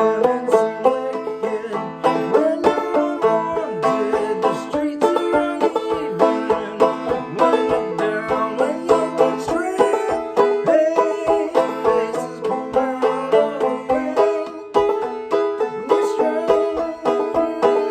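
Five-string banjo played clawhammer style in open A minor tuning: a steady run of brisk plucked notes with ringing strings.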